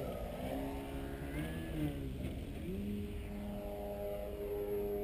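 Radio-controlled Extra 330SC aerobatic model airplane's motor and propeller in flight. The pitch rises and falls with the throttle, then climbs at about three seconds in and holds steady as the plane pulls up and away.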